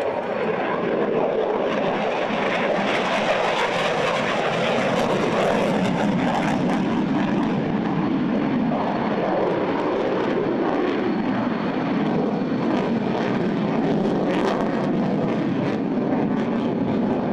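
Jet engine noise from a Chengdu J-20 stealth fighter in flight: a loud, steady roar, with a sweep down in pitch about halfway through.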